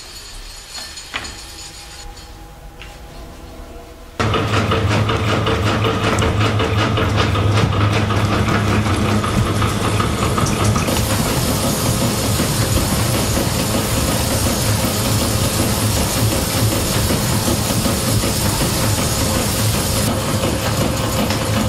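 Jacquard loom running: loud, steady mechanical clatter with a low hum, starting suddenly about four seconds in after a quieter stretch.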